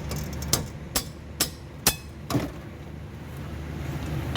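Five hammer blows on metal, about two a second, some leaving a short ring, as a car's front brake is knocked apart for a brake pad change.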